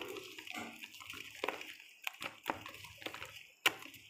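Thick urad dal batter being beaten and mixed by hand in a bowl: irregular wet squelches and slaps, the loudest near the end.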